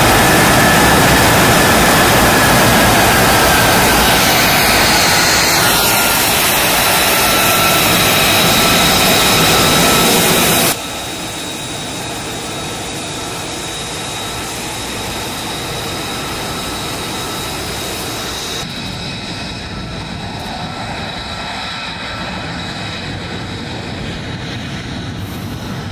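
Fighter jet engine running at taxi power, a loud steady roar with a whine that slowly falls in pitch. About ten seconds in it cuts abruptly to a quieter, steady roar and high whine from an F-35B Lightning II's F135 turbofan as it taxis.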